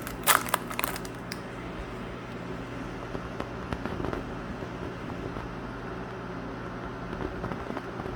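A few sharp crackling clicks in the first second or so from handling trading cards and their foil pack wrappers, then only a steady low hum.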